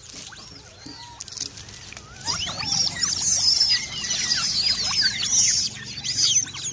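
Several monkeys squealing: many short, high calls that arch up and down and overlap. The calls thicken into a chorus about two seconds in and stop shortly before the end.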